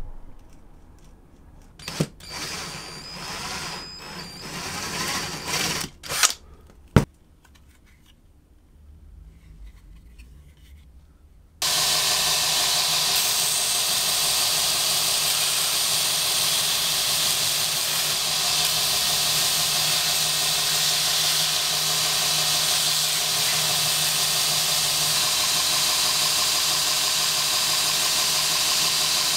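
Belt grinder running steadily, its sanding belt grinding the edge of a kydex sheath, starting abruptly about twelve seconds in. Before that, light clicks and handling of the sheath, with one sharp click about seven seconds in.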